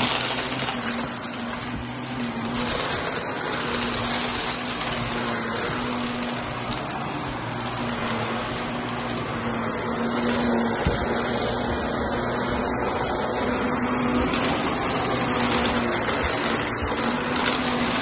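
Shark Navigator upright vacuum cleaner running steadily as it is pushed over a rug, with a hum that comes and goes and small crackles and clicks as it sucks up crunchy debris.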